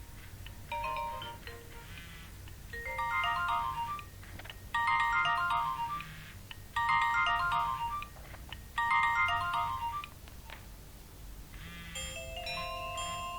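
Nokia 1112 mobile phone ringtone played through the phone's speaker: a short beeping melody repeated five times about every two seconds, louder from the third repeat. Near the end a different ringtone starts.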